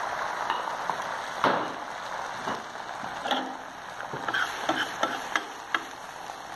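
Beaten egg frying on a flat-top griddle: a steady sizzle that slowly dies down. From about a second and a half in, a spatula scrapes and taps irregularly against the metal plate as it spreads the egg.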